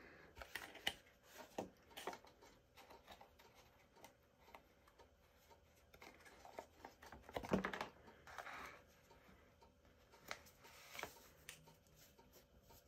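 Faint, scattered rustles, scrapes and light taps of cardstock being handled and pressed together by hand, as a glued flap of a paper lantern is held in place and the piece is folded. The loudest scrape comes about halfway through.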